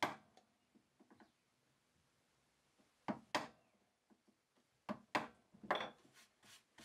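Wood chisel cutting into sapelli against a knife-scored line, making a guide groove for a saw cut: about six short, sharp cuts, one at the start, two a little after three seconds, and three more between five and six seconds.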